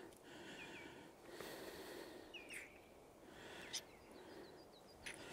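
Quiet outdoor ambience with faint small-bird chirps: a few short down-slurred notes, then a quick run of higher chirps near the end. A single light click sounds about four seconds in.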